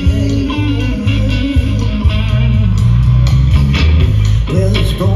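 Live rock band playing through a stage PA: electric guitar over bass guitar and drums in an instrumental passage.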